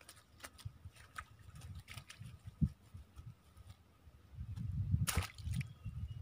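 Small clicks and rustles of handling, then water splashing and sloshing about five seconds in at the water's edge, as a green keep net with freshly caught tilapia is dealt with.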